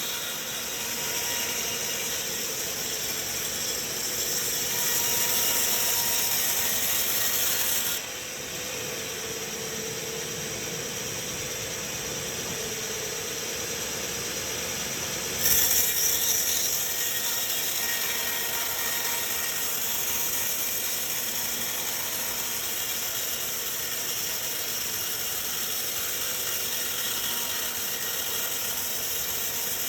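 Sawmill machinery running, a steady mechanical clatter with a hiss. The sound changes abruptly about a quarter of the way in and again about halfway, with a short louder burst at the second change.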